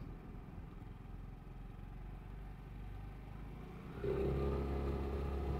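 Vespa GTS 300 scooter's single-cylinder engine: a low, quiet rumble while slowing through a turn, then about four seconds in the throttle opens and the engine gets louder as the scooter pulls away.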